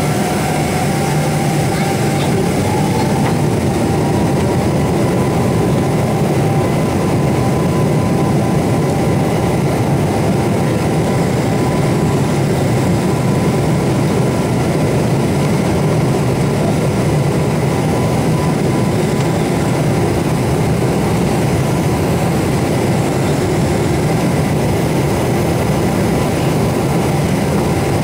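Steady jet engine and airflow drone inside the cabin of a Boeing 777-200, with a faint engine whine that rises slightly in pitch about two seconds in.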